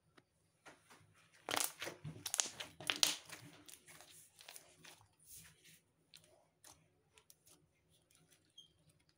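Thick pink slime being squished and pressed by hand, making a quick run of short sticky pops and crackles. They are loudest and densest about one and a half to three seconds in, then thin out into softer squishes.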